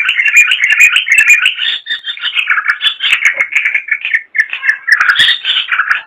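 Trucukan (yellow-vented bulbul) singing a fast, unbroken chattering song of rapid warbled notes, with short high ticks above it.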